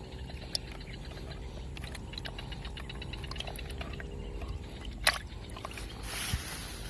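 Outdoor background noise: a steady low rumble with scattered small clicks and one sharp click about five seconds in, then a high hiss coming up near the end.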